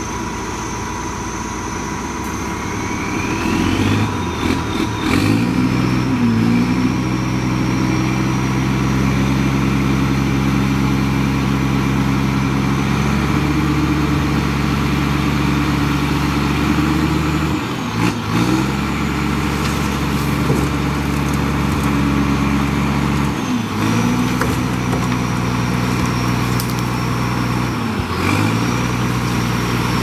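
Bulldozer's diesel engine working under load. It revs up a few seconds in and runs at a steady pitch, then sags briefly and recovers three times in the second half, with a thin high whine over it.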